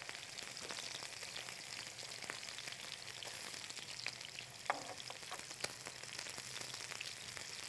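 Pieces of fish frying in oil in a non-stick pan: a steady sizzle with small crackles as they are turned over with tongs. One brief clink stands out about halfway through.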